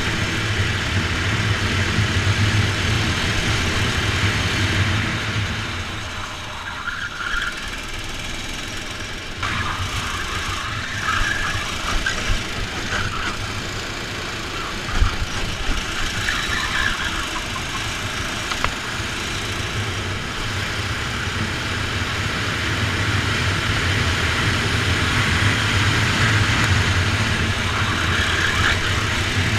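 Rental kart engine running at racing speed, heard from the kart's onboard camera, with wind noise. The engine drops off for a few seconds about a fifth of the way in, then builds again, louder toward the end. There is one sharp knock about halfway.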